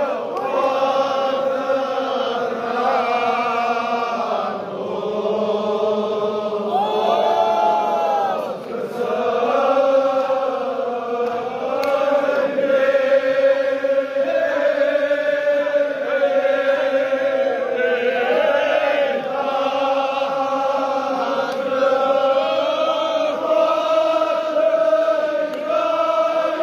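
A large crowd of men chanting a Kashmiri noha, a Shia mourning lament, together in a long-held, rising and falling melody.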